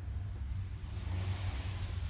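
Steady hiss of air and moisture escaping from the drain of an air-suspension air tank, growing stronger about a second in, over a low hum.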